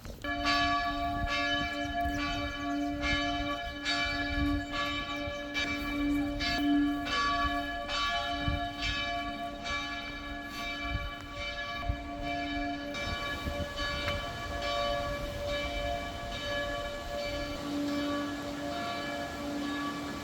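Church bells ringing: a quick, steady run of strokes, a little under two a second, their tones hanging on and overlapping. The strokes grow fainter about two thirds of the way through while the ringing carries on.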